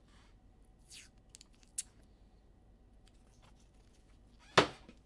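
Trading cards and their packaging being handled on a table: a few faint rustles and small clicks, then one sharp, loud snap near the end.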